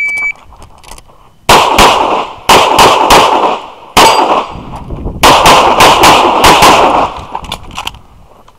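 Electronic shot timer's start beep, cut short about a third of a second in, then, after about a second and a half, a string of pistol shots fired in fast pairs and short bursts, with brief pauses between groups as the shooter moves to new targets.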